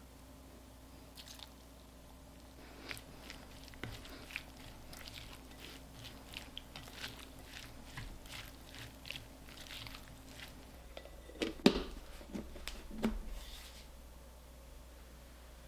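Kitchen knife chopping crisp vegetables on a cutting board: a run of short crunchy cuts, about three a second, with a few heavier knocks of the blade on the board a little before the end.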